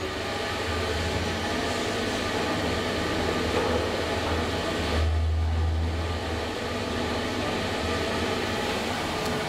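SMW traction elevator car travelling in its shaft: a steady rushing ride noise over a low hum. The hum swells briefly about five seconds in.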